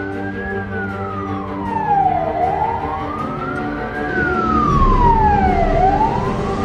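Fire engine's siren wailing, gliding slowly up and down about once every three and a half seconds, over the steady running of the truck's engine.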